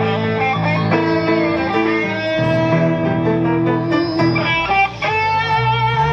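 Loud guitar-led music, a full band mix of held chords and notes, with a wavering sustained melody line in the last second or so.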